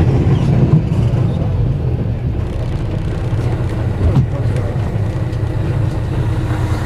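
Tour coach engine running with a steady low rumble, and a brief rising sound about four seconds in.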